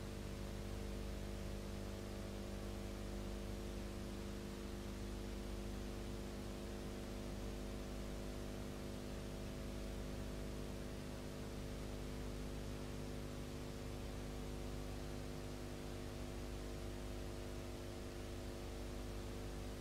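Steady electrical hum with hiss: the noise floor of a silent film's transfer, with no sound from the pictured scenes.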